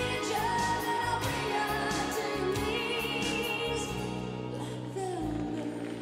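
Exhibition music for the skating programme: a song with a sung melody of long, wavering notes over a steady drum beat, the drums dropping away about two-thirds of the way through and leaving held notes.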